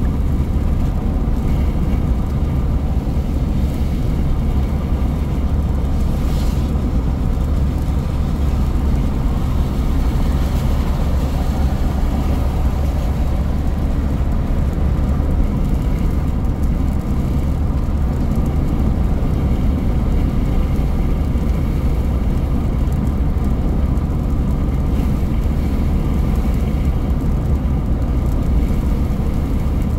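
Steady in-cabin road noise of a car driving on a wet road: a constant low rumble from the engine and tyres.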